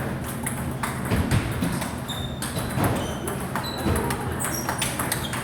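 Table tennis balls clicking off rackets and tables, many sharp irregular knocks, some with a short high ping, over a steady low hum.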